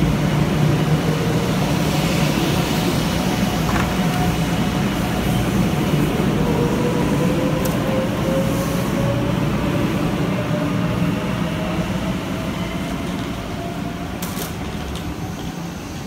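500 Series Shinkansen pulling away from a standstill: the Toshiba GTO VVVF inverter drive whines, rising steadily in pitch, over the rumble of the train on the rails. The sound grows fainter near the end as the train leaves.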